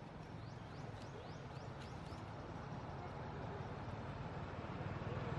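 A motor vehicle engine running, a low steady hum that grows louder toward the end as it draws closer. A quick run of short, high rising chirps sounds over it in the first couple of seconds.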